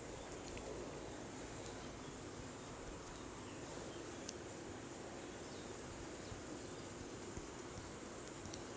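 Faint, steady background noise with scattered soft little clicks.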